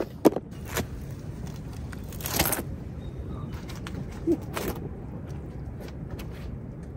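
Sharp plastic clicks as the lid of a plastic food container is pressed shut, then scattered knocks and rustling as a person gets up and steps across rocks, over a steady low outdoor rumble.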